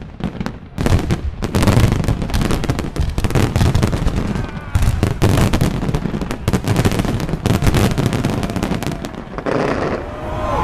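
Large fireworks display: a dense, irregular run of bangs and crackling from shells bursting overhead. The bangs thin out about a second before the end.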